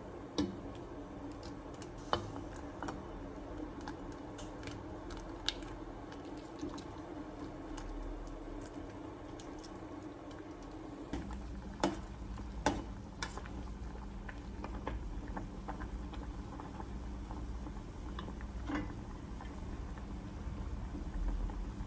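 Scattered light clicks and taps over a steady low hum, like small household handling sounds in a small room; the hum gets stronger about halfway through.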